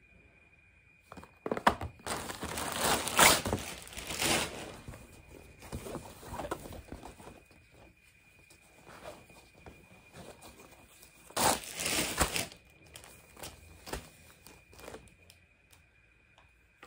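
Rustling and crinkling of a cloth tote bag being shaken out and plastic-wrapped parcels being handled, in two louder bursts: one about two seconds in, lasting a few seconds, and one shorter burst later, with small scattered rustles and clicks between.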